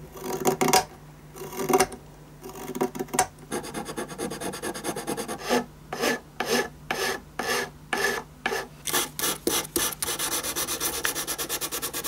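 Hand filing and sanding on a violin's wood, in back-and-forth strokes. The strokes are uneven at first, then spaced about two a second, and near the end become a fast run of about five a second.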